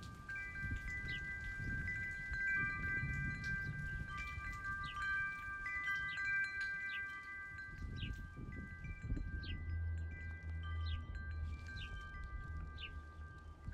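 Chimes ringing: several high, overlapping tones held and struck again many times, over a low rumble that thickens about two-thirds of the way through.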